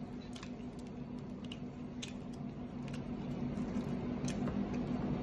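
Faint scattered clicks and squishes of fingers tearing pomfret fish and of chewing, over a steady low hum.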